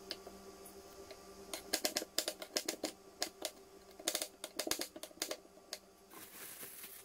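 Kitchen knife chopping on a wooden cutting board: a run of quick, uneven knocks lasting about four seconds, followed near the end by a brief scrape as the blade is dragged across the board.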